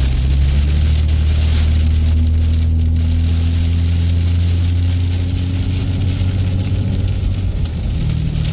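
Diesel engine with an exhaust brake running steadily with a low drone, its note stepping up to a higher pitch near the end. The exhaust-brake noise is no longer there.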